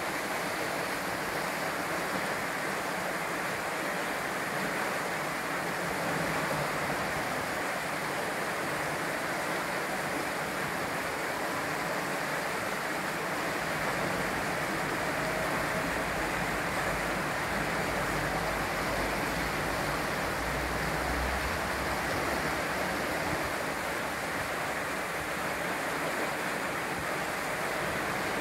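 River water rushing steadily over a rocky ledge, a small white-water chute pouring into a pool.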